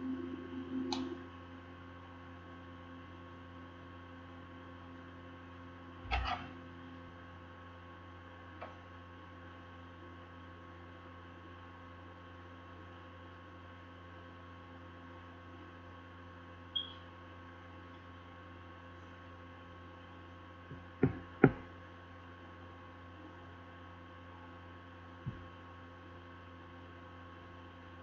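Steady electrical mains hum made of several level tones, broken by a few scattered knocks and taps from handling on the desk; the loudest is a pair of knocks close together about 21 seconds in.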